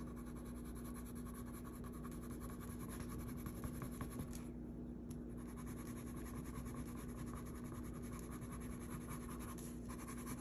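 Watercolour pencil scratching across paper in quick, dense shading strokes, pausing briefly about halfway through before carrying on. A steady low hum runs underneath.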